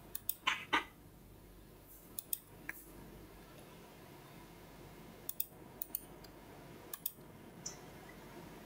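Computer mouse clicking: short, sharp clicks in small clusters of two to four, over a low steady hiss.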